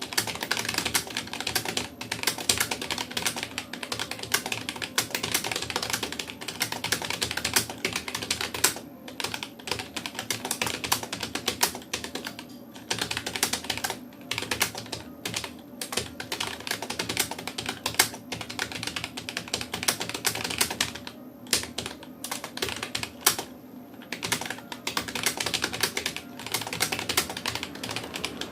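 Fast touch typing on a Rapoo computer keyboard: a dense, uneven run of key clicks with short pauses every few seconds.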